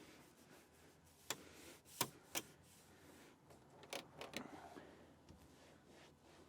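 Faint handling noises while cleaning a car interior: about five sharp clicks in the first half, with light rubbing in between.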